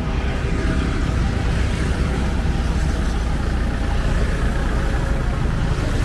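Motor traffic on a main road: vehicle engines running close by as a steady low rumble, with road noise.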